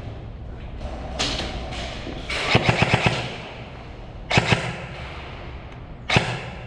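Airsoft guns firing in three short bursts of rapid sharp cracks, the first and longest a few seconds in, then two or three shots, then one or two near the end.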